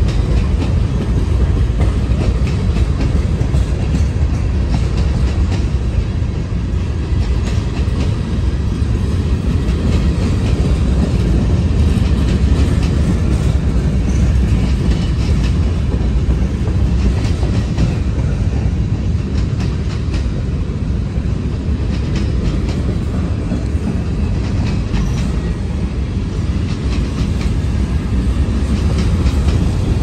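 Freight cars of a long manifest train (covered hoppers, then tank cars) rolling past: a steady rumble of steel wheels on the rails with scattered clacks over the joints.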